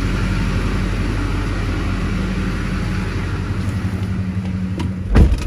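2006 Chevrolet Silverado 2500's 6.6L Duramax turbo-diesel V8 idling steadily through an aftermarket MBRP exhaust, not overly loud. Near the end the truck's door shuts with a loud thump.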